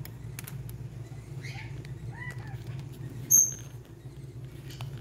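A few faint chirps, then one short, sharp, high-pitched chirp a little after the middle, over a steady low hum and faint scattered clicks.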